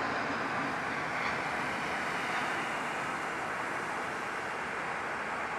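Airbus A320 twin jet engines at takeoff thrust during the takeoff roll and rotation: a steady rushing jet noise.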